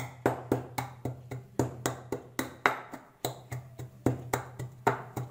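Wooden pestle pounding dried pomegranate seeds (anardana) in a wooden mortar: a steady run of sharp knocks, about four a second.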